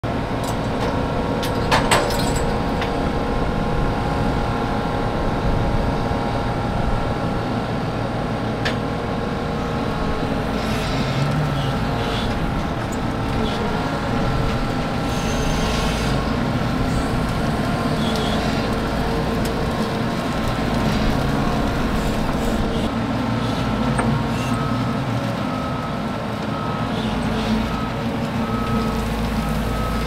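Nexat combine harvester running steadily, an engine drone under several steady whining tones from its drives, with a sharp click about two seconds in.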